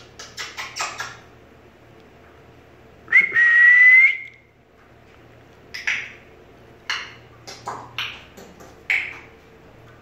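An African grey parrot and its owner exchanging calls: a quick run of clicks, then one long whistle held near a single pitch and rising slightly at the end, then several short sharp calls.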